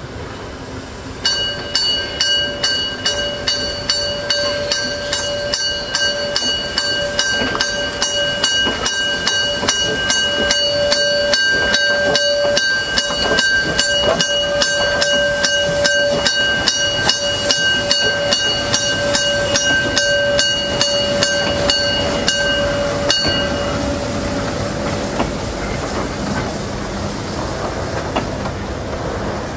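Class 52 2-10-0 steam locomotive and its train passing slowly over a level crossing, with steady exhaust beats and steam hiss. A warning bell rings rapidly from about a second in until about 23 seconds, leaving the rumble of the passing wagons.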